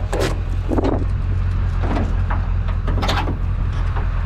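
A vehicle engine running steadily, with several short knocks or clunks over it.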